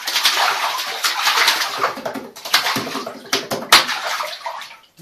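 Hands slapping and splashing on bathtub water in a fast, irregular drumming beat, with a few sharper slaps past the middle; the splashing dies away near the end.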